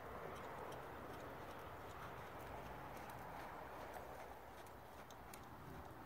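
Faint hoofbeats of a horse moving over arena sand, heard as light repeated ticks over a steady hiss.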